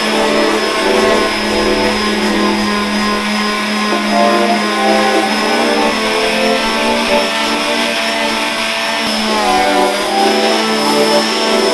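Electric power sander running steadily, a motor whine over sanding hiss, as it sands paint off a wooden desk drawer.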